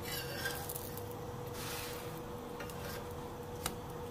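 Metal spatula working a flatbread on a flat iron griddle: a couple of soft scrapes and a sharp click, over a steady hum.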